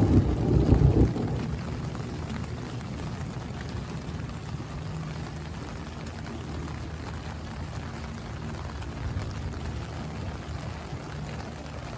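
Heavy rain falling steadily on a tent's fabric, heard from inside the tent. A loud low rumble of thunder runs into the first second and cuts off abruptly, leaving only the even rain.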